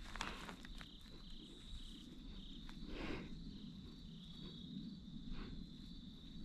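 Slow, soft footsteps on grass, a few steps a couple of seconds apart, over a steady high trill of insects.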